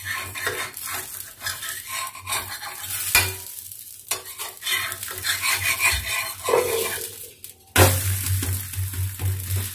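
Bottle-gourd batter pancake sizzling on a hot flat tawa while a spatula scrapes under it and turns it over, with repeated scraping and clinking against the pan once the first side is cooked. A sudden louder clatter comes near the end.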